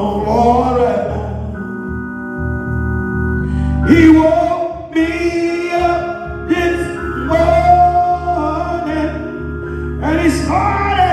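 A man singing a slow gospel song into a handheld microphone, drawing words out in long held notes, over steady sustained chords from an accompanying instrument.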